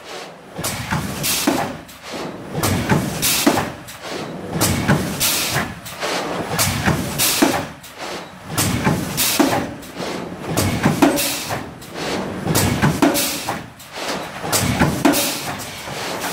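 GN800 thermoforming machine running through its forming cycle, pneumatic cylinders hissing with short blasts of air and the press stations knocking, repeating about once every two seconds.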